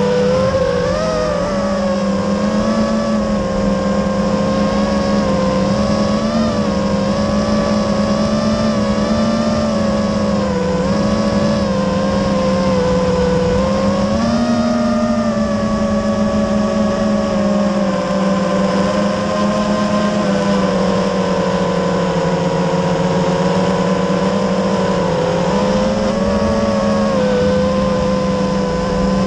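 FPV quadcopter's electric motors and propellers whining, heard through the drone's onboard camera. The pitch wavers up and down with the throttle.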